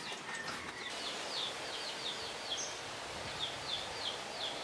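A small bird chirping repeatedly, short high notes that slide down, about two to three a second, over a steady outdoor hiss.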